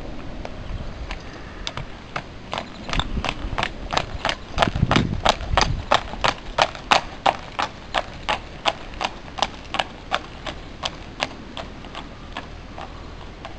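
A horse's hooves trotting on hard paving: sharp, even clip-clops about three a second, loudest midway as the horse passes close and fading as it moves away.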